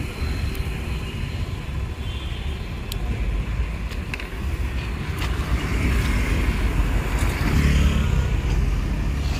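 Motor vehicle noise: a steady low rumble that grows louder about six seconds in and is loudest around eight seconds, as a vehicle passes. A few faint small clicks sound over it.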